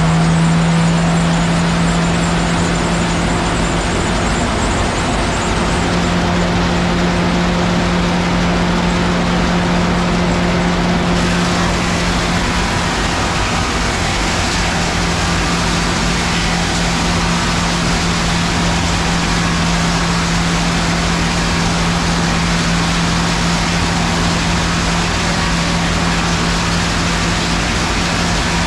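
Vintage sawmill machinery running steadily: a constant low hum over dense, even mechanical noise, with no distinct cuts or knocks.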